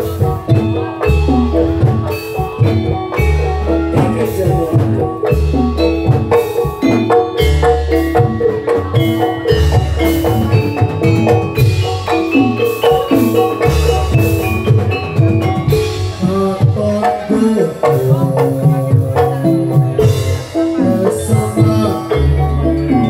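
Gamelan music for a kuda lumping trance dance: metallophones ring a busy, fast melody over steady drum and low gong-like strokes.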